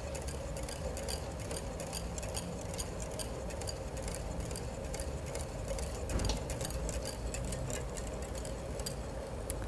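Wire whisk ticking quickly and irregularly against a metal bowl as egg whites and sugar are whisked over a bain-marie (water bath) to dissolve the sugar. A low steady hum runs beneath.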